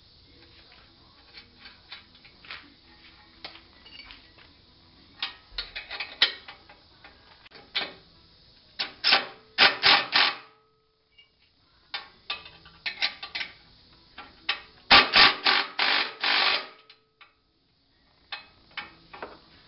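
Cordless power driver running in two loud bursts of rapid rattling, about nine and fifteen seconds in, driving the bolts that hold a winch to its mounting plate. Lighter clicks and metal taps come before them as the hardware is handled.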